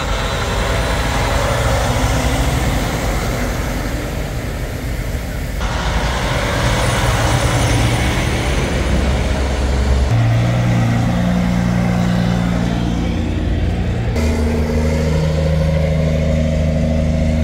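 Semi-trucks' diesel engines and tyres rolling slowly past, one truck after another. The sound changes abruptly three times as each pass gives way to the next, and in the later part a steady engine drone stands out.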